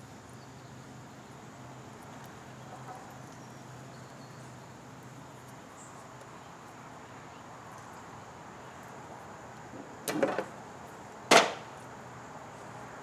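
Two sharp knocks about a second apart near the end, the first a short rattle and the second single and louder, over a faint steady low hum.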